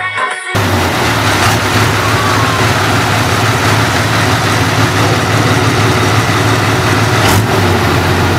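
Heavy engine of a giant custom-built motorcycle running steadily at idle with a deep, even hum. It starts about half a second in, and there is a single short knock near the end.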